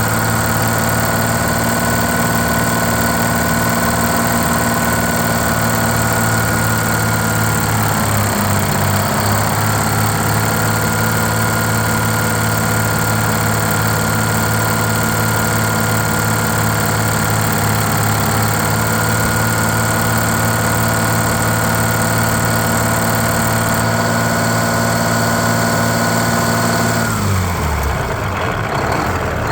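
GM New Look bus's Detroit Diesel two-stroke engine idling steadily. It sags briefly about eight seconds in, then winds down and stops near the end.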